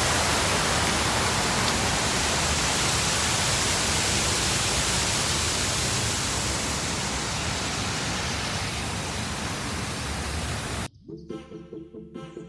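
Loud, steady rushing noise that slowly fades, cut off abruptly near the end by background music.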